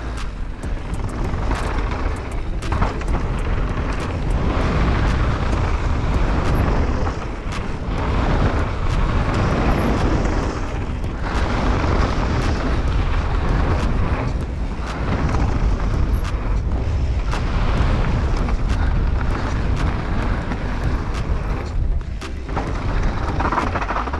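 Wind rumbling over the camera microphone of a downhill mountain bike at speed, with tyres crunching over a gravel trail and frequent clicks and clatter from the bike over bumps. The level swells and dips with the riding.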